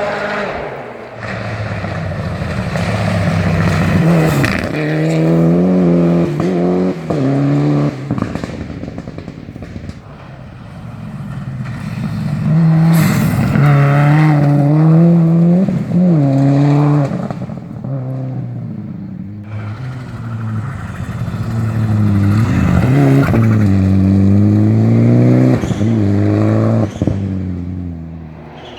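Mitsubishi Lancer Evolution rally car's turbocharged engine revving hard through gear changes, its pitch climbing and dropping in three surges, with the misfiring (anti-lag) system popping and banging off the throttle.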